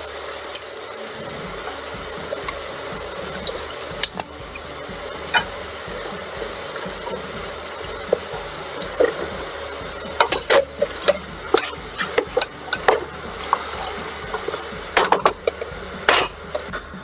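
Diced raw potato dropped by the handful into a stainless steel pot of mince, with scattered knocks and clatter against the pot, then a wooden spoon stirring near the end, over a steady low hiss.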